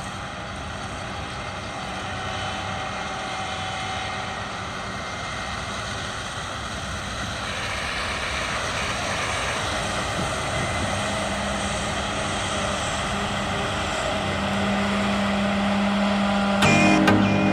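John Deere X9 combine harvester running in the field, its noise growing steadily louder as it draws nearer, with a steady low engine hum coming up over the last few seconds.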